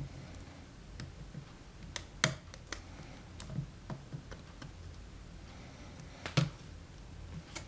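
Scattered sharp plastic clicks and taps from a laptop LCD panel being handled and seated into the display frame, with a cluster of clicks about two seconds in and the loudest pair just past six seconds.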